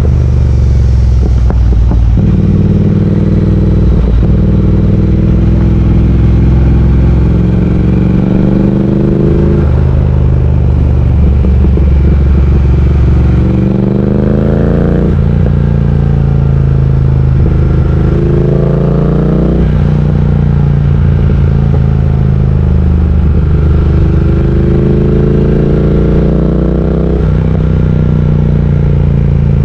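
Triumph Speed Twin 1200's parallel-twin engine under way: its note climbs in pitch again and again as the bike accelerates, each climb ending in a sudden drop typical of a gear change or the throttle closing.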